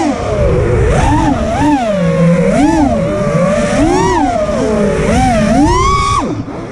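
FPV freestyle quadcopter's brushless motors (Axisflying AF227 2010 kV on 6S) whining, the pitch rising and falling about once a second with each throttle punch. About six seconds in the whine drops sharply as the throttle is cut.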